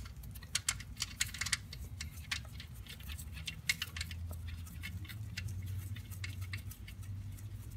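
Light, irregular metallic clicks and ticks as the oil pan's drain plug is threaded back in by hand, over a steady low hum.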